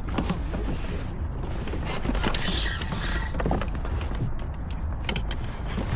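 Spinning fishing reel cranking with repeated clicks and creaks as a hooked halibut is reeled in, over a steady low rumble.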